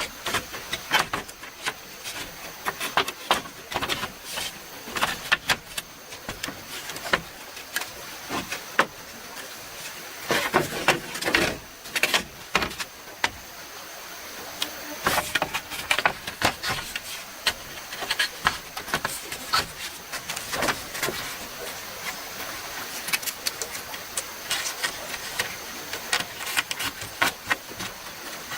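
Irregular sharp knocks, clicks and scrapes, as of hand work with tools, over a steady background hiss; the knocks come thickest about ten to thirteen seconds in.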